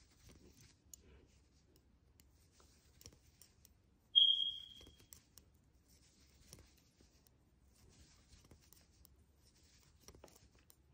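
Knitting needles clicking faintly against each other and yarn rubbing as purl stitches are worked by hand, a soft scratchy rustle with scattered small ticks. About four seconds in, a short high ping rings out and fades within a second.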